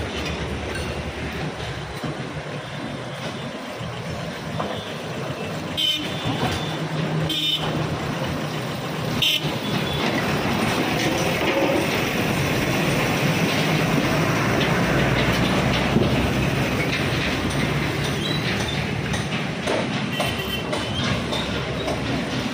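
A train passing close by, its rumble and hum swelling to a peak about two-thirds of the way through and then easing off. A few short toots sound between about six and nine seconds in.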